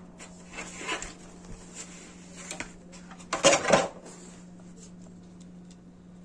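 Hands handling a folded plastic smartphone gimbal: light knocks, clicks and rubbing, with the loudest clatter about three and a half seconds in as it is grabbed and lifted.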